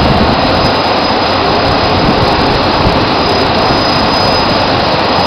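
Drilling rig floor machinery running: a loud, steady mechanical noise with no distinct knocks or changes, heard while pipe is being pulled out of the hole.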